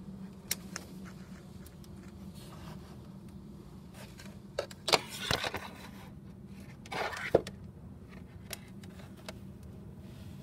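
A few scrapes and knocks of things being handled, with sharp clicks, the loudest around the middle of the clip, over a steady low hum.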